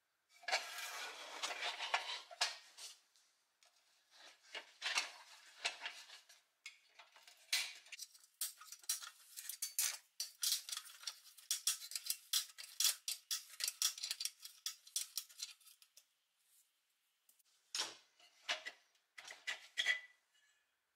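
Screwdriver tip scraping and prying at a push-nut retainer on a pivot post of a 1950s Doepke pressed-steel toy road grader: steel-on-steel scrapes and a fast run of small metallic clicks, then a few separate sharper clinks near the end.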